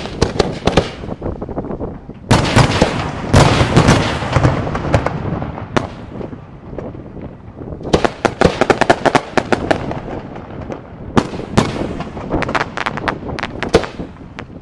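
Aerial fireworks display: rapid volleys of sharp bangs and crackling reports from bursting shells, coming in four dense clusters with brief lulls between them.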